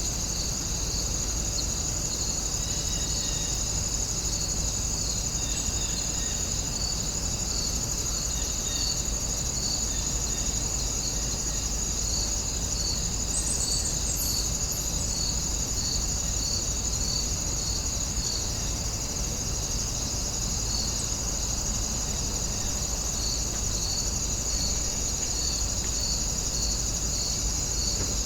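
Warm-afternoon outdoor ambience of insects chirring in a steady high drone, with a regular chirp repeating about every second, over a constant low rumble.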